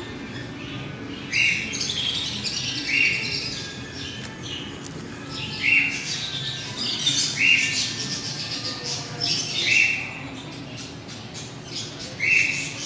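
Birds chirping and squawking: a loud, short call repeated every one to two seconds over steady higher chatter.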